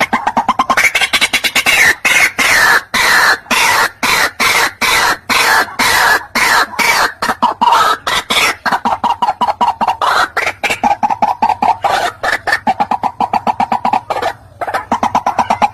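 White-breasted waterhen calling: a long, loud run of harsh notes repeated rapidly, several a second, with a brief break near the end.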